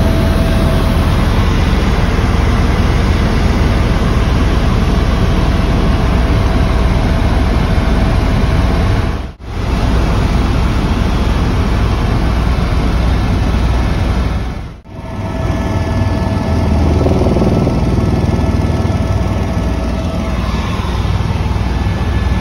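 Helicopter cabin noise: the rotor and engine drone loud and steady, with a few steady whining tones over a deep rumble. The sound dips out briefly twice, about nine and fifteen seconds in.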